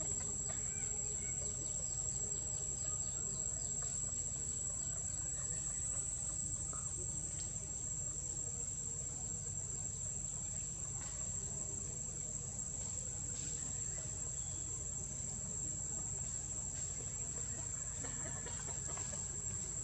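A steady, high-pitched insect drone over a low, even rumble, with a few faint short calls in between.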